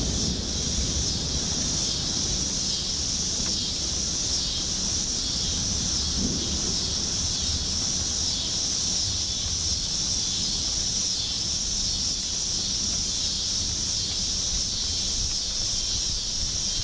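Storm ambience: wind rumbling on the microphone under a steady high hiss.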